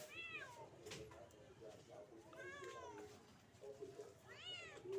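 Kitten meowing three times, each meow rising and then falling in pitch, about two seconds apart. It is calling from up a tree it has climbed and won't come down from.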